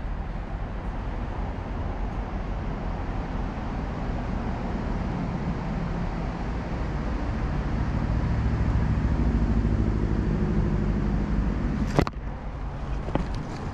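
Steady road-traffic rumble, with a vehicle engine hum that swells louder in the middle. There is one sharp click near the end.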